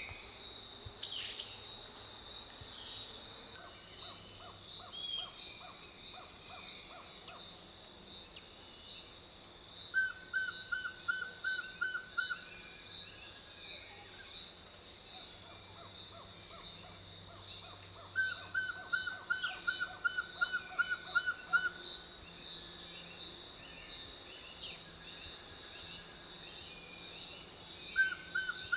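A steady, high-pitched insect chorus. Three times, a rapid trill of repeated short notes from another night animal sounds over it for two to three seconds.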